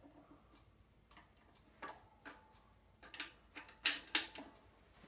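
Irregular sharp metallic clicks and ticks from a hydraulic shop press as it is worked to press a universal-joint bearing cap into a drive shaft yoke, mostly in the second half and loudest about four seconds in. The cap is binding and not going in.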